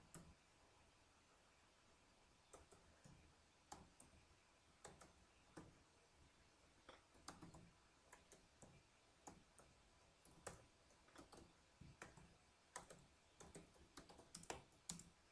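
Faint, irregular keystrokes on a computer keyboard, typing, starting about two and a half seconds in.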